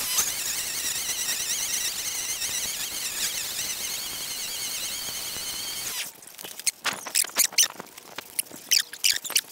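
String trimmer running at full speed, a loud high whine that wavers in pitch as the line cuts through long grass. About six seconds in it cuts off suddenly, and a string of short, sharp, high-pitched squeaks follows.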